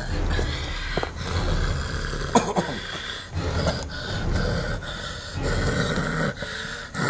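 A person breathing heavily, with snorting and grunting, over low rumbling noise and a few sharp knocks.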